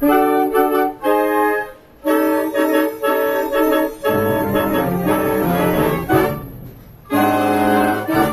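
Concert wind band of clarinets, saxophones and brass playing sustained chords in short phrases, with brief breaks between them. A loud full-band chord with low bass comes in about a second before the end.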